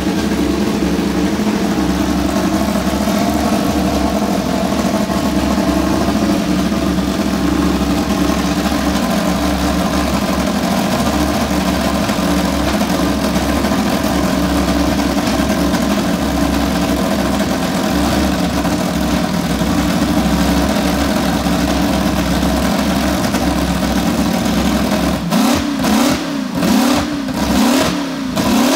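Mercedes-Benz W196R's 2.5-litre straight-eight racing engine warming up, running at a steady fast idle. Near the end it is revved in about five short throttle blips in quick succession, the pitch rising and falling with each.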